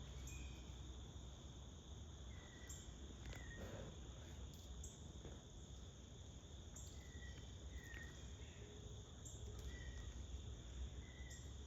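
Faint, steady cricket-like insect trilling, with a short call repeating every second or two over it.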